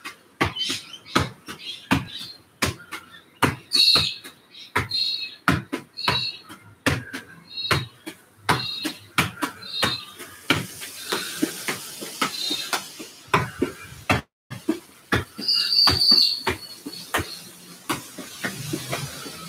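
A football being juggled by foot and knee, each touch a short thud, about two a second, keeping a steady rhythm. Small birds chirp now and then over it.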